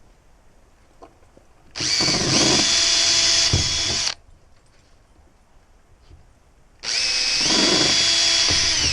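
Power drill boring pilot holes with a 7/64" bit, in two runs of about two seconds each. In each run the motor whine steps up in pitch soon after it starts.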